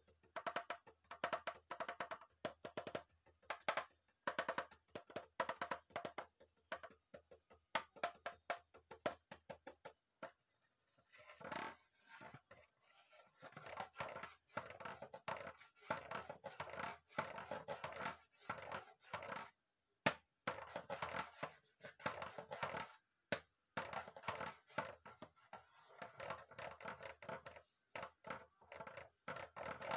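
Homemade percussion instrument being played: quick rhythmic hollow knocks, with a short lull about ten seconds in, then denser, more ringing strokes.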